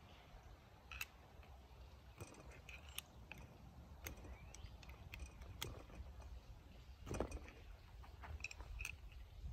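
Scattered light metal clicks and taps as small valve parts and a hand tool are handled on a small tractor engine cylinder head, with a louder clatter about seven seconds in. A few faint bird chirps come through in the background.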